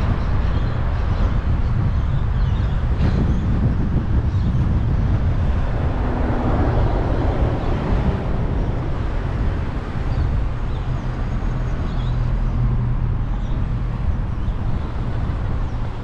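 A car driving on city streets: a steady low rumble of engine and tyre noise, with a brief swell of louder noise about six seconds in.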